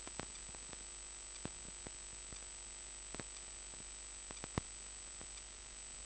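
Steady static hiss with a constant high-pitched whine, broken by scattered faint clicks, one sharper about three-quarters of the way through; no voices or clear game sounds stand out.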